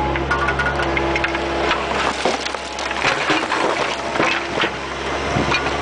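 Bobcat 430 mini excavator bucket scraping and crunching through dirt and stones, with many sharp cracks and clicks. Under it runs the steady hum of the machine's engine and hydraulics, which dips for a moment midway.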